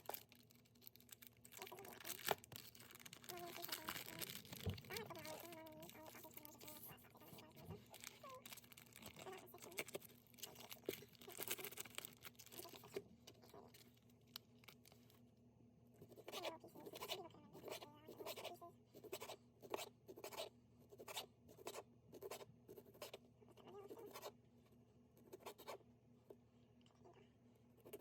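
Knife slicing sausage against a cutting board: a long, uneven run of faint taps and knocks, coming faster in the second half.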